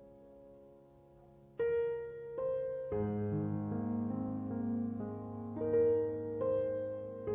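Instrumental piano music: a soft chord dies away, then new chords are struck about one and a half seconds in, with low bass notes joining about three seconds in.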